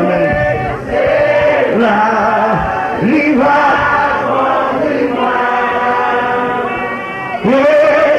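A man singing a slow, chant-like hymn into a microphone, holding long notes and sliding in pitch between phrases.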